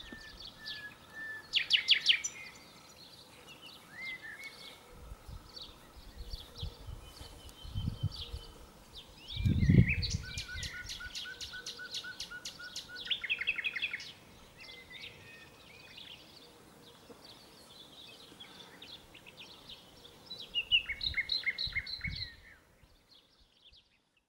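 Several songbirds singing and calling, with repeated chirps and fast trills, over a faint steady outdoor background. A low rumble comes about ten seconds in, and the birdsong fades out near the end.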